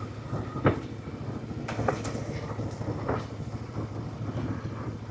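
A vehicle engine running steadily at low speed, with a few short knocks and rattles from the ride.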